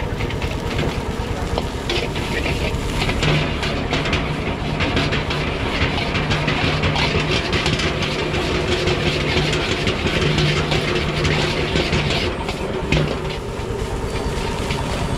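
Metal ladle scraping and clattering quickly against a steel wok as fried rice is stir-fried, over the steady rushing hiss of a gas burner.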